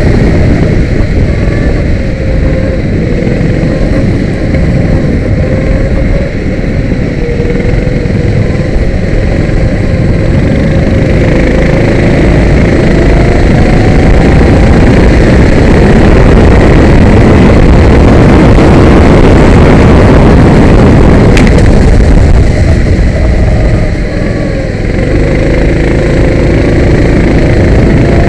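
Kart engine running hard, heard from the kart's onboard camera, its pitch rising and falling with the throttle through the corners over a heavy rush of wind and road noise.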